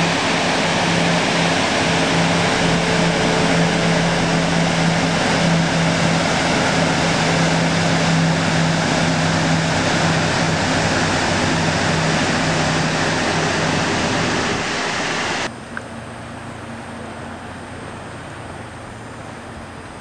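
Loud steady rushing of a waterfall over the steady hum of a tour boat's engine. About 15 seconds in it cuts abruptly to a quieter rush of wind on the microphone with the boat still running.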